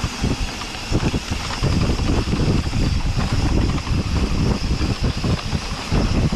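Wind rushing over a helmet-mounted camera's microphone at speed on a mountain bike, with the rumble of tyres on a dirt trail and irregular knocks and rattles as the bike hits bumps.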